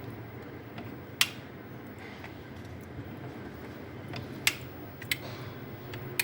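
Four sharp clicks or taps of hard objects being handled, over a steady low hum.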